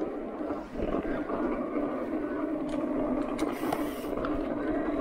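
Electric mountain bike riding along a dirt singletrack, making a steady rushing ride noise that grows louder about a second in.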